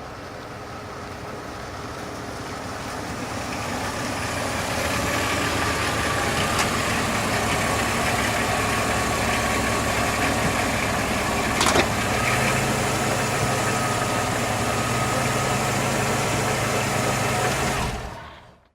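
Car engine growing louder over the first few seconds as the car pulls in, then running steadily at idle. About twelve seconds in a sharp click is heard and the engine note changes. The motor is switched off near the end and the sound dies away quickly.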